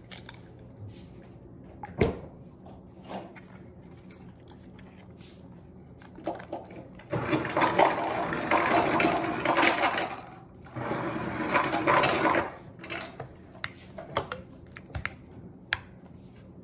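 A loud rushing noise in two stretches, starting about seven seconds in and again about eleven seconds in, made by her son elsewhere in the house. Around it, small clicks and crinkles of a little plastic creamer cup being opened in her fingers.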